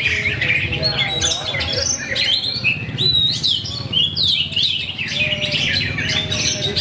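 Oriental magpie-robins (kacer) singing in full competition song, many birds at once: dense, overlapping loud whistles, trills and chattering calls that never pause, over a low steady hum.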